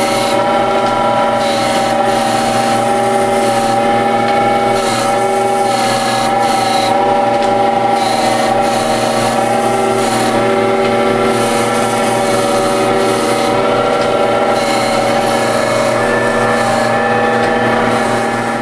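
A 1935 Gallmeyer & Livingston No. 35 surface grinder's wheel grinding the steel face of a blacksmith anvil: a steady gritty hiss over the machine's even motor hum.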